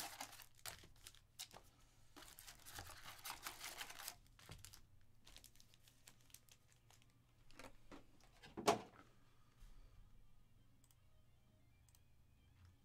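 Foil-wrapped trading card packs rustling and crinkling as they are handled and stacked, with scattered light clicks and taps and a dense stretch of crinkling from about two to four seconds in. One louder knock comes near the ninth second.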